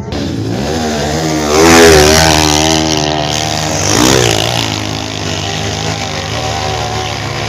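Motorcycle engine revving hard under load on a dirt hill climb. The pitch rises and wavers as the throttle is worked, loudest about two seconds in, with a second surge near four seconds before it settles.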